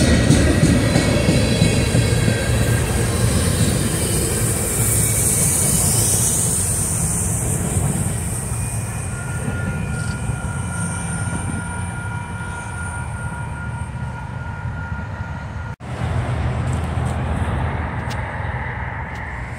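Freight train rolling past: a loud, steady low rumble of locomotives and cars that slowly fades, with faint thin squeals of wheels on the rails. Near the end the sound cuts out for an instant.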